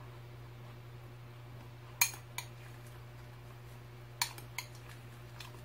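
Metal spoon clinking against a bowl of cereal and milk: a sharp clink about two seconds in, a lighter one just after, and a few more around four seconds and near the end, over a steady low hum.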